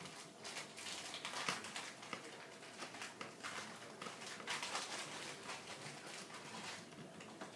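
Faint, irregular clicking and scraping of a screwdriver backing small screws out of the plastic battery mount inside a Swiffer Sweeper Vac.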